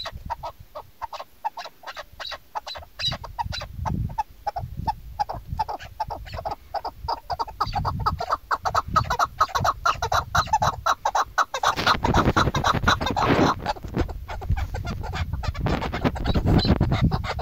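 Chukar partridge calling in a rapid run of short clucking notes, several a second, which the title gives as a female's call. A broad rushing noise, like wind on the microphone, comes in about twelve seconds in and again near the end.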